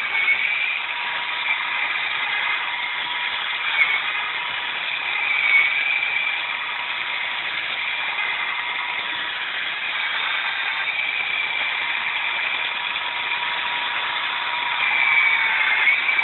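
Electric drill spinning an Awesome Auger weeding bit through weeds and soil, running steadily at its single high speed with a continuous whir.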